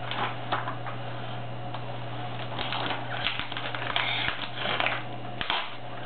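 Wrapping paper being torn and crinkled by small hands, in irregular rustling bursts, most of them between about two and a half and five and a half seconds in.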